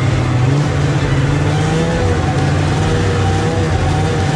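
Snowmobile engine running steadily while under way, a continuous loud drone whose pitch wavers slightly.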